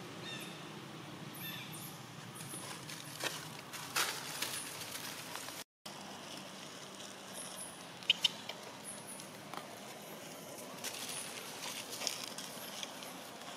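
Dry fallen leaves rustling and crackling as a long-tailed macaque moves and picks through the leaf litter, with a few sharp clicks, over steady outdoor forest ambience with faint high insect or bird chirps.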